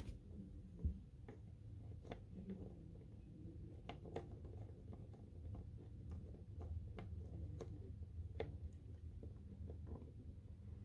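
Faint handling noise of fingers moving plastic Littlest Pet Shop figurines: scattered small clicks and taps over a low steady hum, with one soft thump about a second in.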